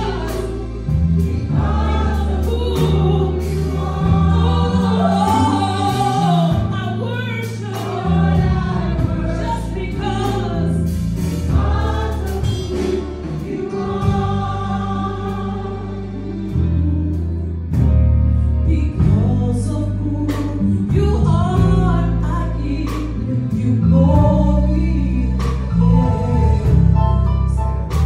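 Live gospel worship song: a woman sings lead into a microphone with backing vocalists behind her, over an accompaniment with a deep, sustained bass line and percussive hits, amplified through loudspeakers.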